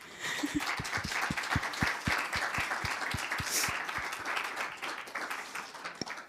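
Audience applauding, with one set of hands close by clapping steadily at about four claps a second; the applause dies away near the end.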